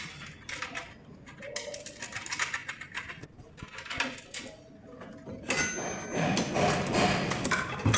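Irregular metallic clicks, clinks and light knocks of tools and parts being handled, busier and louder in the second half.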